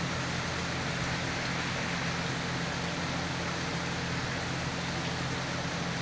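Heavy rain falling steadily, an even hiss of rain on the ground, gravel and foliage, with a low steady hum underneath.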